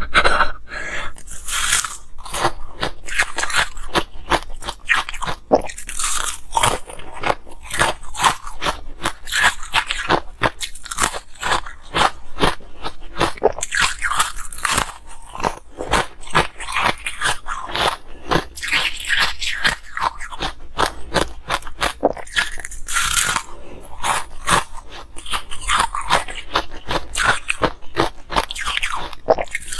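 A person biting and chewing a ring of blue ice close to the microphone: a continuous run of sharp, rapid crunches and cracks as the ice breaks between the teeth.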